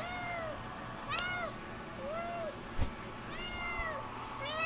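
Kitten making short, weird meow-like calls while eating, about one a second, each rising and then falling in pitch. A brief knock is heard about midway.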